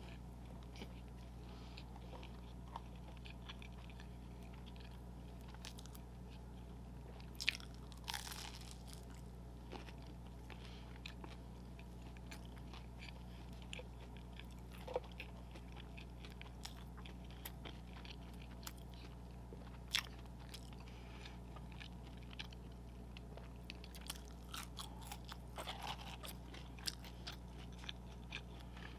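Close-miked mouth sounds of someone eating McDonald's fast food: scattered wet chewing and crunchy bites, with a few louder bites now and then, over a steady low hum.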